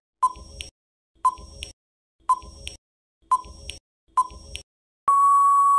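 Quiz countdown-timer sound effect: five short ticks about one a second, then a long steady electronic beep near the end that marks time up.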